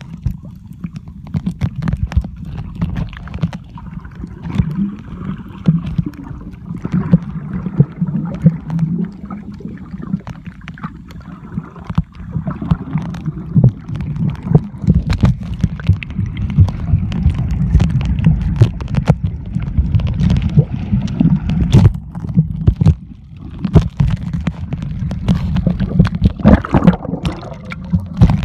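Muffled underwater sound picked up by a submerged camera: a steady low rumble of moving water with frequent small clicks and knocks.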